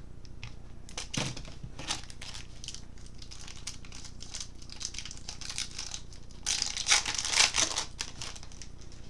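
Foil baseball card pack wrapper being crinkled and torn open by hand: scattered rustles and clicks, with a louder stretch of crinkling about two-thirds of the way through.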